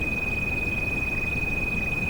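A steady high-pitched pure tone, a tinnitus sound-therapy frequency, held without change over continuous rain noise.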